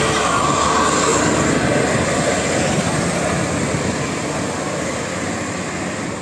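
A large bus driving past close by. Its engine and tyre noise is a loud, even rush that slowly fades as it moves away.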